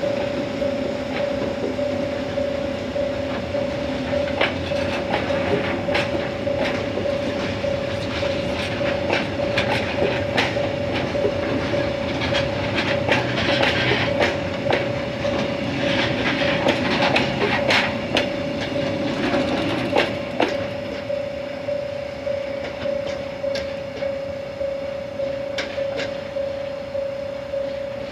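EF65 electric locomotive hauling a train of rail-carrying flat wagons past. The wagons' wheels rumble on the track and clack at irregular intervals over rail joints, with a hiss that is loudest in the middle. A steady high hum runs underneath throughout.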